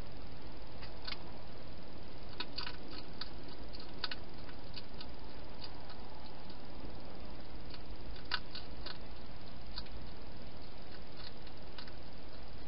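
Wild hedgehog feeding at a dish, its mouth making irregular sharp clicks and smacks, some in quick clusters and the loudest about two-thirds of the way in, over a steady hiss from the camera's microphone.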